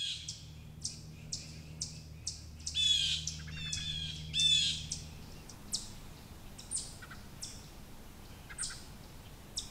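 Woodland songbirds calling: sharp, high chips repeated about twice a second, with a few short descending chattering calls in the first half. A faint low steady hum sits under the calls and stops about halfway.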